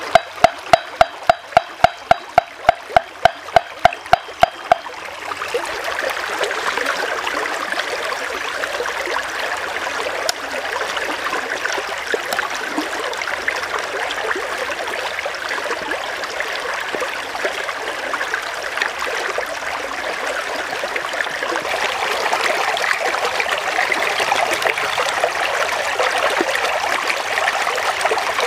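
Shallow stream running over rocks, a steady rush of water. For the first five seconds a rapid, even series of loud, sharp ticks, about three a second, sounds over it and then stops.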